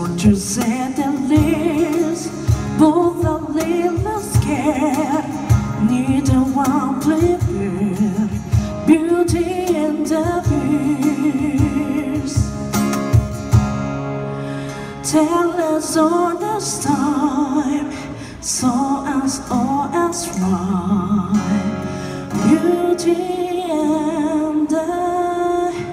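Live acoustic band performing a ballad: acoustic guitar and cajon under a held, wavering sung line with no clear words.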